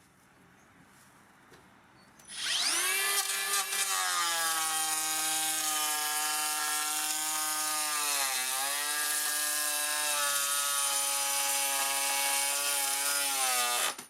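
Makita 40V XGT cordless planer starting about two seconds in, spinning up with a rising whine and then planing pine at a 4 mm depth of cut, running on a nearly spent 2.5 Ah battery. Its pitch dips briefly about midway, and it stops near the end.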